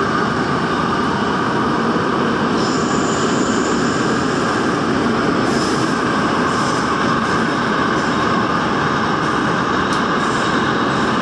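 Daejeon Metro Line 1 train running at speed through a tunnel, heard from inside the car: a loud, steady rumble of wheels on rail. Faint high-pitched wheel squeal comes and goes a few seconds in.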